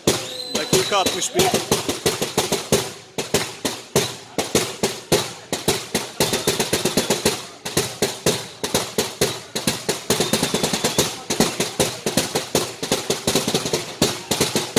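Football supporters in the stand beating out a fast rhythm, a steady run of sharp bangs several a second, with voices chanting along underneath.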